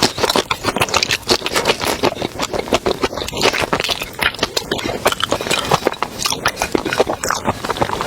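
Close-miked eating of a spicy seafood boil: dense crackling, scraping and chewing with many quick clicks.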